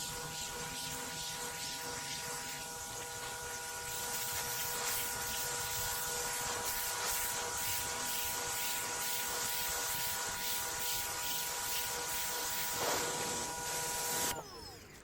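Pressure washer running and spraying water onto a concrete sidewalk: a steady hiss with a pulsing about twice a second and a set of steady whining tones. It gets louder about four seconds in, and near the end the whine drops out and the spray stops.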